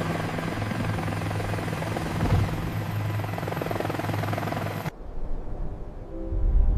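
Helicopter sound effect: a steady rotor-and-engine whir that cuts off suddenly about five seconds in. Music starts up near the end.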